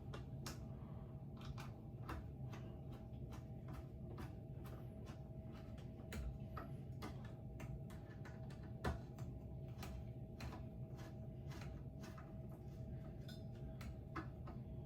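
Irregular light clicks and ticks of small hardware being handled, as the blades are screwed onto a ceiling fan, over a steady low hum.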